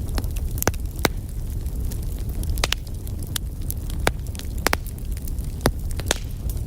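Wood fire burning in a fireplace, crackling with irregular sharp pops, about ten over a few seconds, over a steady low rumble.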